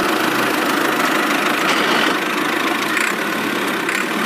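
Steady, even engine running sound, like a truck engine idling: a sound effect laid over a toy dump truck that is pulled by a string and has no motor of its own.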